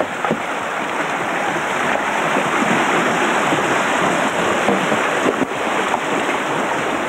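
Shallow river water rushing over stones and around a poled bamboo raft: a steady hiss of running water.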